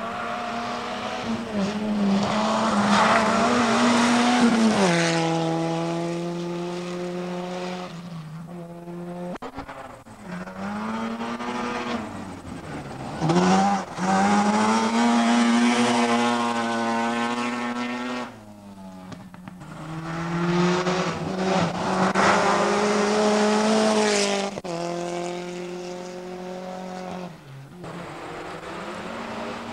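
Rally cars at full throttle on a gravel stage, passing one after another: engines revving hard and climbing in pitch, then dropping sharply at lifts and gear changes several times.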